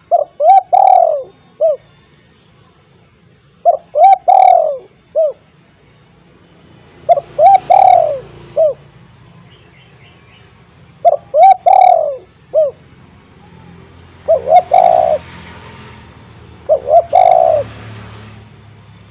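A spotted dove (tekukur) singing loudly, repeating its cooing phrase six times, about once every three to four seconds; each phrase is a few short coos around one longer, stronger coo.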